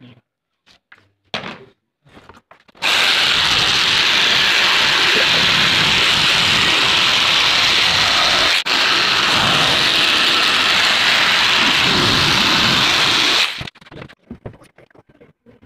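Electric jigsaw cutting a curved shape out of a printed-face board. It starts about three seconds in, runs steadily with one momentary break about halfway, and stops shortly before the end. Light handling scratches and clicks come before and after.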